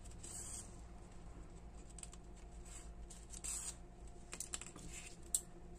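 Soft rustling and scattered light clicks of grosgrain ribbon and sewing thread being handled as thread is wrapped around a bow's centre and finished off, with one sharper click near the end.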